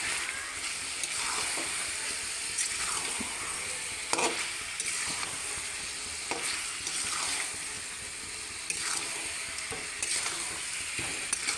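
Chicken pieces and potatoes sizzling in hot oil in a kadai as a spatula stirs them, with irregular scrapes and knocks against the pan. The meat is being fried down (kosha) in oil without water.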